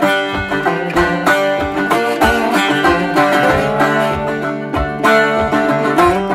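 Background music: an upbeat plucked-string tune in a banjo, bluegrass style, with a steady beat.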